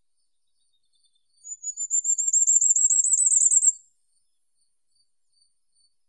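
Firecrest singing one song phrase: a rapid run of very high, thin notes that grows louder and rises slightly in pitch over about two seconds, starting about a second and a half in.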